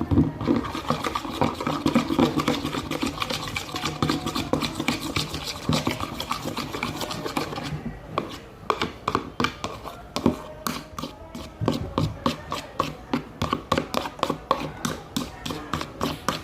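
Spoon stirring a glue and colouring mixture in a bowl, the back of the spoon scraping and clicking against the bowl in quick repeated strokes. In the second half the strokes settle into an even rhythm of about three or four a second.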